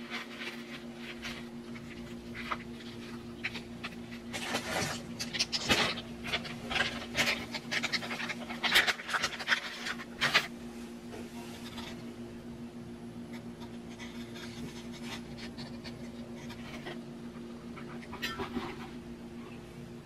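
Rustling and crinkling of disposable face masks and a plastic mask pouch being handled and folded, in bursts that are loudest between about four and eleven seconds in, then quieter handling. A steady low hum runs underneath.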